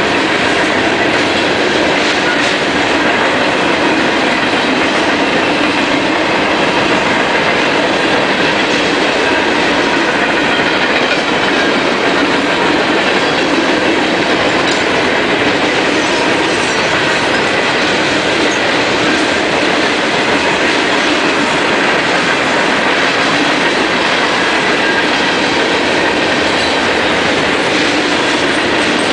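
Freight cars of a passing manifest train rolling by: a steady, loud rumble and clatter of steel wheels on the rails that does not let up.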